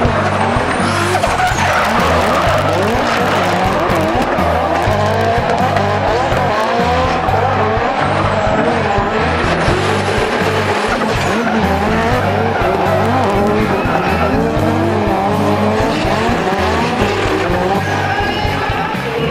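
Drift cars sliding in tandem, engines revving high and tyres squealing continuously, over background music with a steady, heavy bass line.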